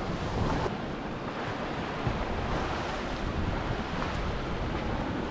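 Sea surf washing over rocks, a steady rushing noise, with wind buffeting the microphone in a low, uneven rumble. A single brief knock about two seconds in.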